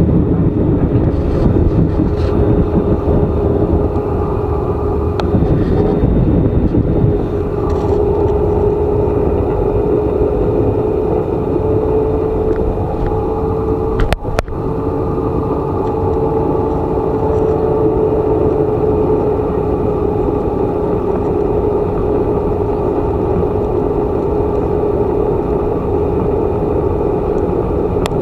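Airliner engines droning steadily: a constant whine over a low rumble, with a brief break about fourteen seconds in.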